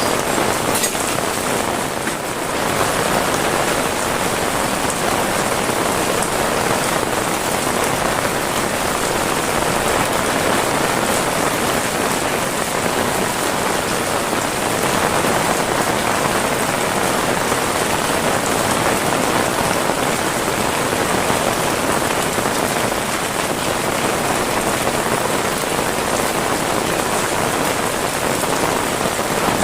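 Heavy rain falling steadily, a dense even hiss of drops with no break.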